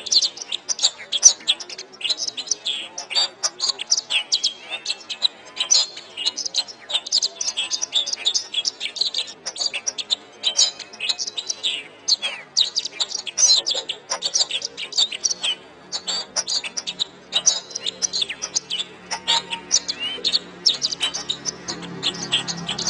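Domestic canary singing a fast, continuous song of rapid chirps and trills. A low steady tone comes in faintly near the end.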